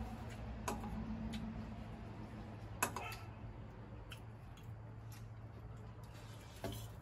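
Spoons and forks clinking and scraping against a plate and a metal bowl while people eat: a handful of separate light clicks, the loudest about three seconds in, over a steady low hum.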